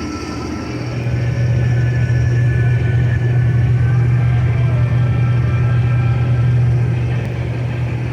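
Heavy diesel harvest machinery running steadily with a strong low engine hum. It grows louder about a second in and eases off slightly near the end.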